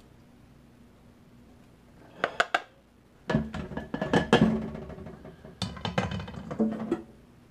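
A plastic colander and spoon knocking against a stainless steel mixing bowl while bone broth is strained: three quick taps about two seconds in, then several seconds of clattering and scraping with the metal bowl ringing.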